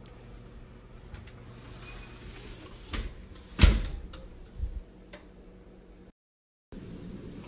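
Kitchen wall oven being loaded: a baking sheet clicking into place, then the oven door shut with a thud about three and a half seconds in, followed by a smaller knock and a few light clicks.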